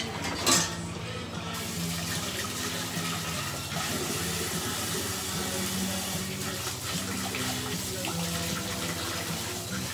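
Kitchen tap running into a sink, a steady hiss of splashing water that starts after a click about a second in, over gospel music.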